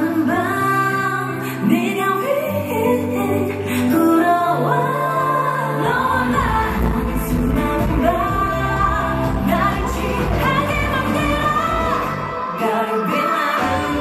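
Live K-pop performance: female vocals sung into handheld microphones over a loud backing track. A heavy bass beat comes in about six seconds in.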